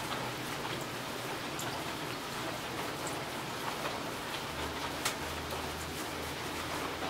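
Steady rain, with single drops ticking sharply here and there, and a low rumble coming in about halfway through.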